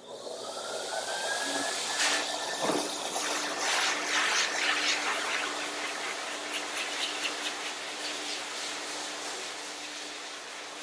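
Pet force dryer switched on at its low setting: the motor spins up with a whine that rises over the first couple of seconds, then a steady rush of air blows from the hose nozzle.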